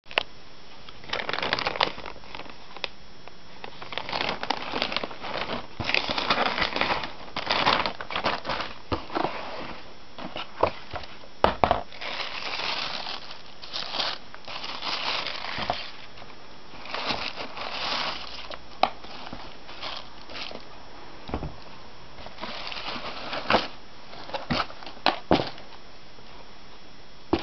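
Plastic postal mailer bag and tissue paper crinkling and rustling in irregular bursts as they are handled and pulled open, with a few sharp knocks in between.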